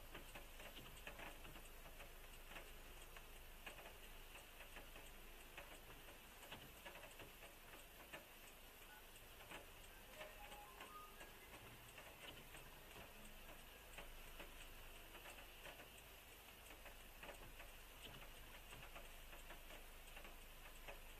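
Near silence: faint, irregular ticks of raindrops hitting the car, over a steady low hiss.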